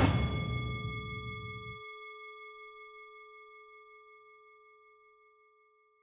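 A metal gong struck once, ringing with several steady tones that fade out over about five seconds, its deep rumble dying away within the first two seconds.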